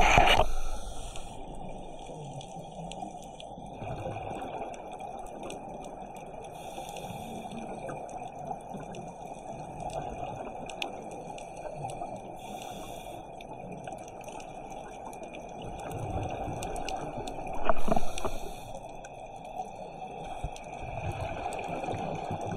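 Underwater ambience on a scuba dive: a steady rush of water with scattered faint clicks, and gurgling bursts of divers' exhaled regulator bubbles about every five seconds, the loudest about 18 seconds in.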